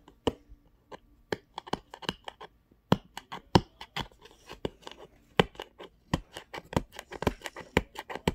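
Hands working at a phone's cardboard box and its plastic packaging, giving irregular sharp clicks and crackles, several a second.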